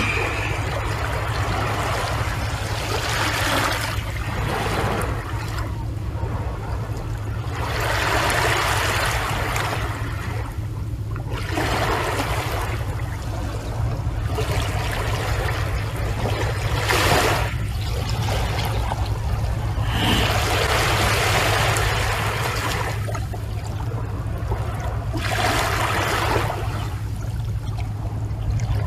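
Sea waves washing onto a shore, each rush of surf swelling and fading every few seconds over a steady low rumble.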